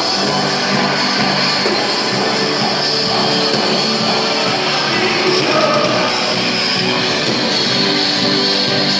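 Live rock band playing a worship song, with guitars to the fore and a steady, dense wall of sound.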